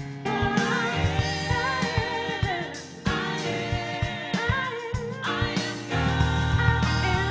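Gospel worship song: a singer with a wavering, ornamented melody over a band with drums and bass, the bass swelling in strongly for the last second or so.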